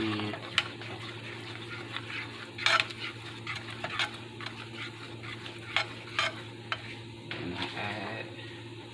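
Plastic spatula stirring and scraping through thick, melting cheese sauce in a nonstick frying pan, with scattered sharper taps and scrapes against the pan as the sauce starts to bubble. A steady low hum runs underneath.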